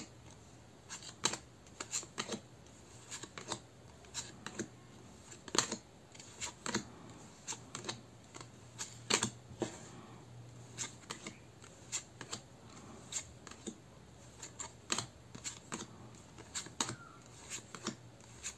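Tarot cards being handled one by one, each card flicked or set down with a sharp little click, irregularly about once or twice a second.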